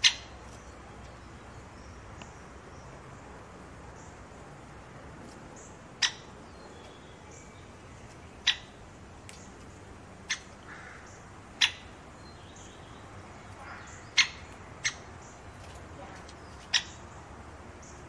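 Great spotted woodpecker giving short, sharp single "kik" calls, about eight of them at irregular gaps of one to three seconds, over faint outdoor background hiss.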